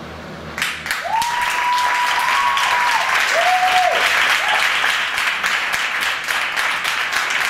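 Theatre audience breaking into applause just under a second in, clapping steadily through to the end, with two long steady whistles of cheering over the clapping, the second shorter and lower.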